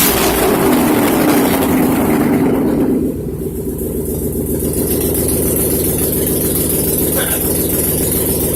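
Car engine running with its exhaust headers removed, so the exhaust is open and very loud. The revs fall over the first three seconds, then it settles into a steady idle.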